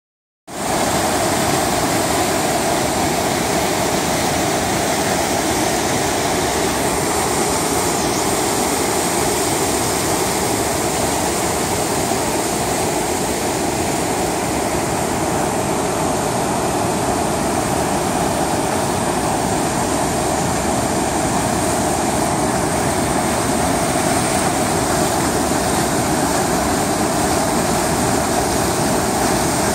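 Jordan River rushing through white-water rapids at high flow: a loud, steady sound of churning water that starts about half a second in.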